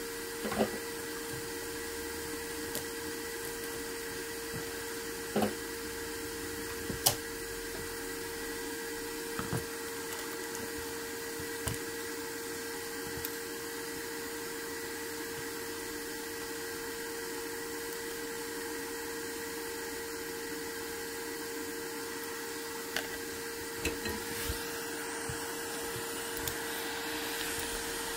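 Steady hum of a small electric motor with a constant tone, with occasional light clicks and taps. An airy hiss grows louder in the last few seconds.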